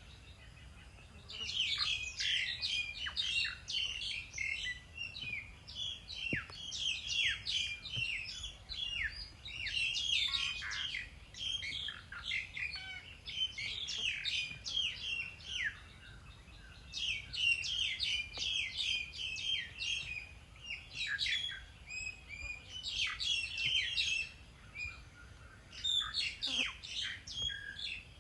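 Small birds chirping busily: dense runs of quick chirps and short falling notes, with brief lulls about halfway and near the end.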